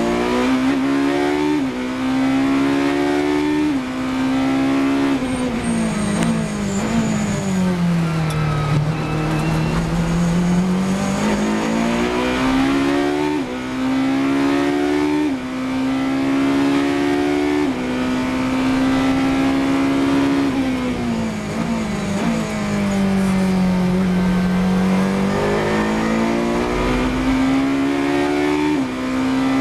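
Ferrari 458 Italia GT3's V8 racing engine heard from inside the car at full throttle. Its pitch climbs steadily and drops in a sharp step at each quick upshift. Twice the revs fall away smoothly as the car slows, then climb again under power.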